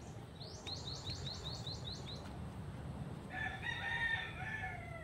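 A rooster crows once, starting about three seconds in and lasting about two seconds, trailing down at the end. Before it, a small bird gives a quick run of about eight rising chirps.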